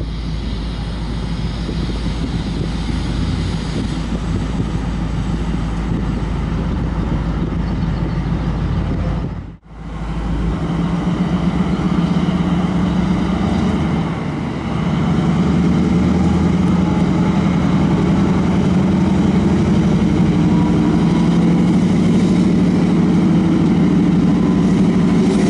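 Chinese CKD diesel-electric locomotive engine running under load as it pulls a passenger train away. After a sudden break about ten seconds in, a second locomotive departure follows. About fifteen seconds in, that engine's steady low drone swells and grows louder as it accelerates.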